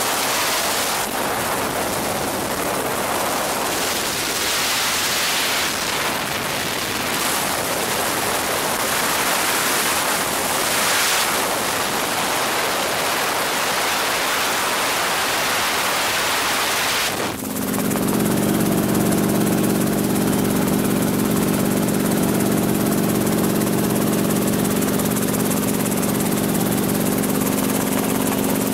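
Helicopter in flight, heard from inside the cabin: a steady rush of wind and airflow noise, which changes abruptly about halfway through to the helicopter's steady engine and rotor drone with several low, even tones.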